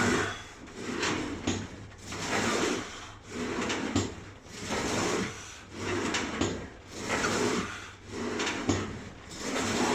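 Leg press sled sliding back and forth on its rails through repeated reps, a rubbing, sliding sound that swells and fades about once every second and a quarter, with small knocks at the turns.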